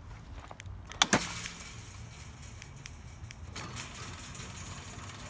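Automatic sliding gate opener (CO-Z) kicking on with two sharp clunks about a second in, then its electric motor running with a steady hum as it drives the chain link gate; the running sound grows louder and brighter about three and a half seconds in.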